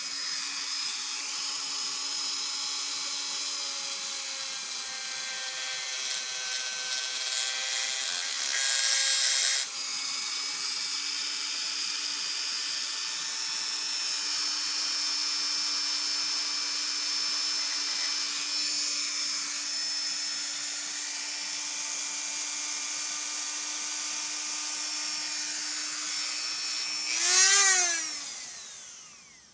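Dremel rotary tool running at its lowest speed with a steady whine, lightly grinding down raised gasket tabs on a chainsaw crankcase mating surface so it sits flat without an air leak. About nine seconds in there is a louder, harsher stretch. Near the end the tool swells, its pitch rising then falling, and it winds down and stops.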